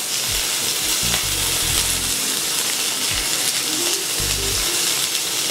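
High-fat beef burger patty sizzling steadily as it sears in a very hot frying pan. A few dull low thuds sound under the sizzle.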